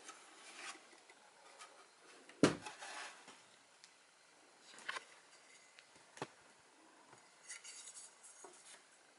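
Hands handling an empty wooden subwoofer enclosure: a sharp knock about two and a half seconds in, the loudest sound, then lighter knocks near five and six seconds and some light rubbing later.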